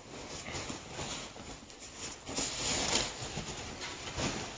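Plastic bag rustling and crinkling as a mask is lifted and pulled out of it, loudest about two and a half seconds in.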